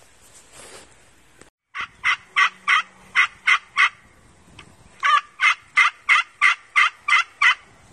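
Hand-held turkey call being worked to give two runs of sharp, hen-like yelps, about three a second, with a pause of about a second between the runs.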